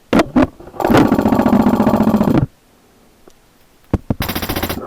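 HPA-powered airsoft Stoner 96 replica firing full-auto at about 20 rounds a second: a burst of about a second and a half, then a shorter half-second burst near the end. Sharp single clicks come before each burst.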